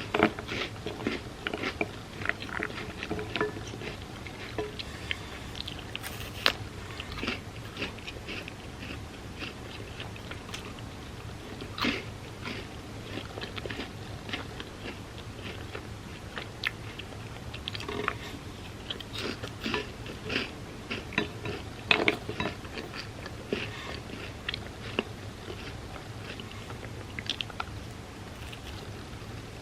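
A person chewing and crunching hazelnut-cream-filled chocolate wafer pieces eaten as cereal in milk, close to the microphone: a run of small crisp clicks and crunches, with a few louder bites around the middle and again about two-thirds of the way in.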